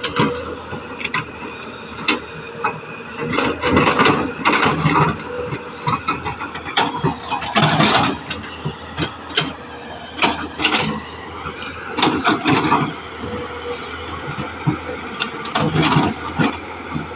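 Tata Hitachi FX220LC excavator at work: its diesel engine runs steadily under irregular knocks and clatter from the digging.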